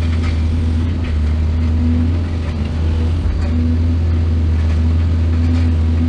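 Heavy excavator engine running steadily, a deep constant drone, with a few faint light clanks over it.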